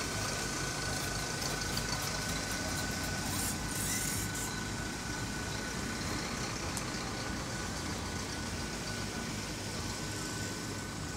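A steady engine-like rumble with a thin, steady high whine over it, and a brief hiss about three to four seconds in.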